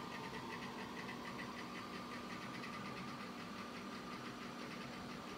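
Apple Macintosh Quadra 950 running: a steady machine hum with a thin whine from its cooling fan and SCSI hard drive, over a rapid, faint, even ticking that fades during the first half, as the startup drive is tested.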